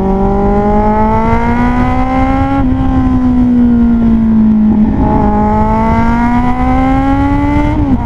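Kawasaki Z800's inline-four engine heard on board, pulling up through the revs, dipping about two and a half seconds in and sagging off, then pulling hard again until the revs drop sharply near the end. Wind and road noise run underneath.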